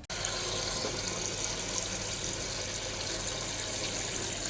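Toilet cistern filling through its fill valve: a steady rush of water that starts suddenly.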